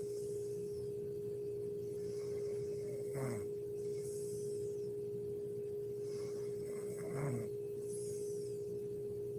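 A sleeping woman snoring: two short snores, about three seconds in and again around seven seconds, with faint breathy exhalations between them. Under them runs a steady pitched hum.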